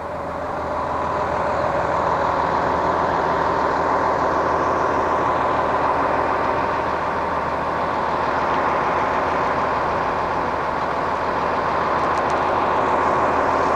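Heavy vehicle engine running steadily at idle, a low hum under a steady whine.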